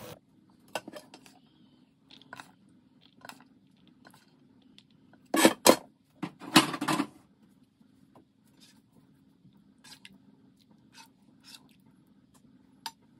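Serving utensils and dishes clinking and knocking as pasta and meat sauce are plated: scattered light clicks, two sharp knocks about five and a half seconds in, then a louder, longer clatter just after.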